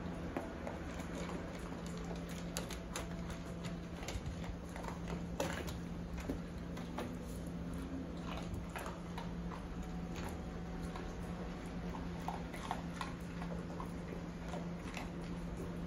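Dogs eating dry kibble from plastic bowls on a tile floor: irregular crunching and clicking of food and bowls, with paws ticking on the tiles, over a steady low hum.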